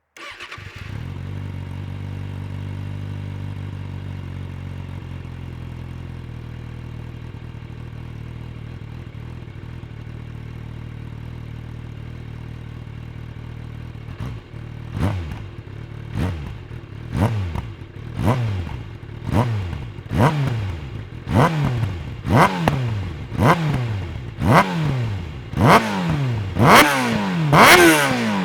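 Kawasaki ZX6R 636 inline-four sport bike engine idling steadily. About halfway through it is blipped with short throttle revs about once a second, the revs growing louder toward the end.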